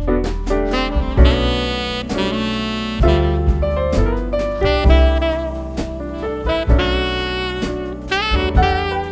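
Background jazz music led by a saxophone, with drums and piano.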